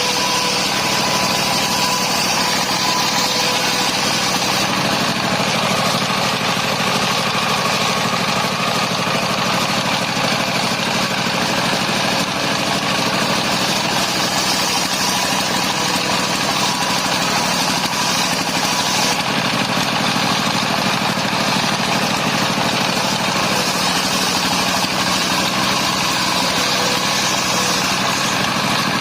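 Engine of a mobile circular sawmill running steadily at a constant pace.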